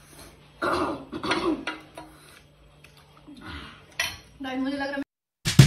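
Metal forks scraping and clinking against plates of noodles as two people eat quickly, with a short vocal exclamation about four and a half seconds in. Music starts abruptly just before the end.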